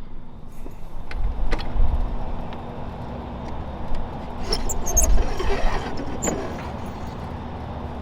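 Clicks, scraping and a few short squeaks of plastic and metal parts being handled as a duct smoke detector's housing is opened, over a steady low hum and low wind rumble on the microphone.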